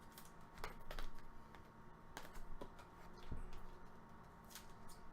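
Trading cards being handled: faint, irregular clicks and taps as cards are flipped through and set down, with one soft low thump about three seconds in.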